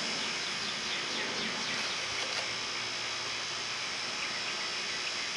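Outdoor ambience of insects: a steady high-pitched insect buzz over a hiss, with runs of quick falling chirps, most in the first couple of seconds and a few more near the end.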